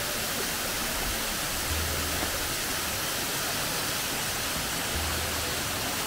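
Water of a hill-stream waterfall rushing steadily, an even hiss that does not change.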